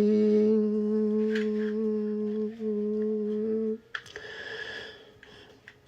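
A singing voice holds a long, steady, unaccompanied note, closing the sung line, and cuts off a little under four seconds in; a soft breath follows.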